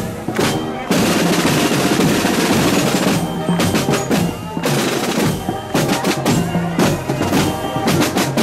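Marching band drum section playing: rattling snare drum rolls over beats of a bass drum, with many sharp drum strokes.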